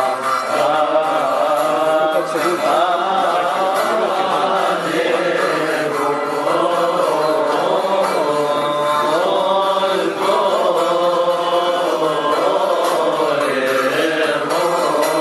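Coptic Orthodox church hymn being chanted, one continuous winding sung melody.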